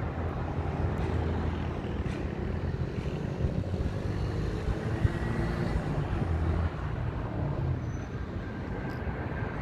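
Boeing 737 MAX's CFM LEAP-1B jet engines at takeoff thrust, a steady low rumble as the airliner climbs out. A faint high whine comes in near the end as it comes into view.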